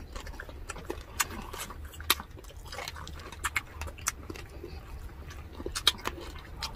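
People eating crispy fried pork: wet chewing and mouth smacks with irregular crisp crunching clicks.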